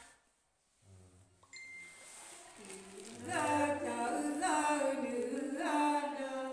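A woman singing a Nùng folk song unaccompanied, in long, wavering held notes that begin about two and a half seconds in.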